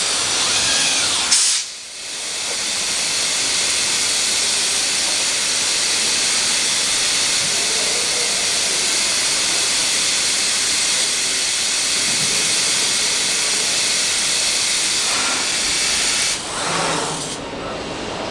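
PADE Sincro five-axis CNC machining centre running, its spindle working a plastic part: a steady high hiss with a faint whine. The hiss cuts out suddenly about a second and a half in, builds back over the next second or two, and eases slightly near the end.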